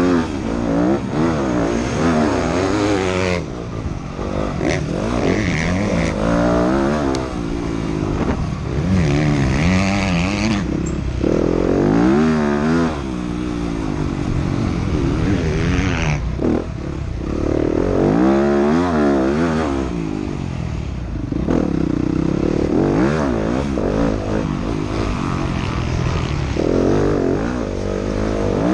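Motocross bike engine heard from the rider's onboard camera, revving up and dropping back again and again as it is ridden hard around a dirt track.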